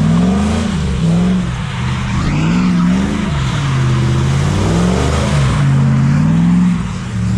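Car engine revving up and down over and over, each rise and fall lasting about a second, under a steady rushing noise.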